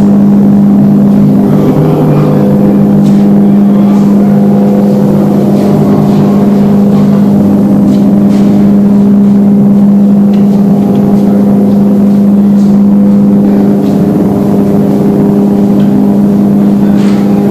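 Loud, steady mechanical hum with a strong low tone and overtones, from a paint spray booth's ventilation fans running.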